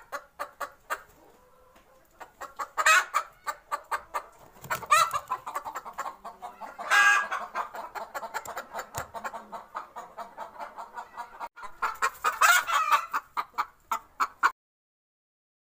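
Chicken clucking in quick, repeated short notes, with several louder calls along the way. It cuts off suddenly near the end.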